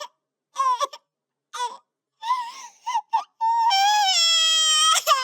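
Edited crying sound effect: short high-pitched wailing sobs chopped apart by abrupt gaps of dead silence, then one long held wail starting about three and a half seconds in.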